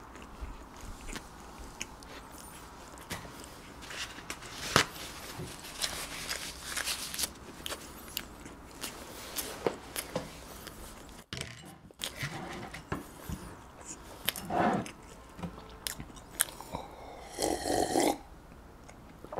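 Close-miked chewing of a mouthful of bread, with wet mouth sounds and small crackles, then a few gulps of milk from a glass near the end.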